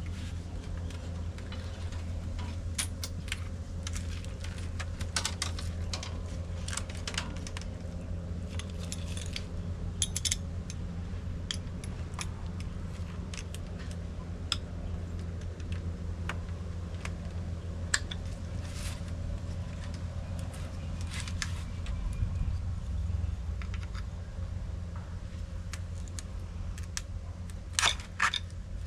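Light, scattered clicks and scrapes of split bamboo strips and a metal tool working the rim of a woven bamboo basket, over a steady low hum, with a few sharper clicks near the end.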